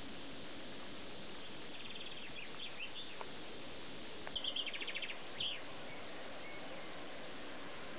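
Steady background hiss with two short bursts of high, rapid chirping trills, about two seconds in and again between four and five and a half seconds in.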